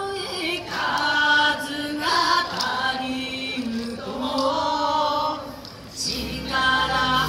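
A slow, choir-like sung passage of a yosakoi dance track played over loudspeakers. It has long held notes with short breaks, and a low steady bass note comes in near the end.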